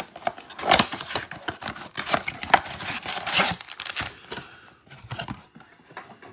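Cardboard trading-card blaster box being torn open by hand: a dense run of ripping and crinkling for about four seconds, then a few lighter rustles as the foil-wrapped packs are handled and set down.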